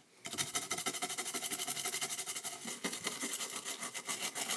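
Fiberglass pen scrubbing fast back and forth over the copper pads of a circuit board, a dry scratching of several strokes a second that starts about a quarter second in, cleaning off corrosion left by a leaked battery.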